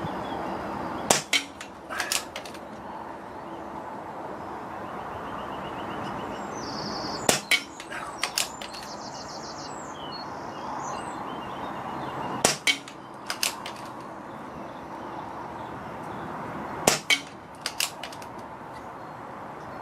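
BSA R10 Mark II air rifle firing .177 pellets: four sharp shots about five seconds apart, each followed about a second later by a few quick clicks. Wind on the microphone runs underneath.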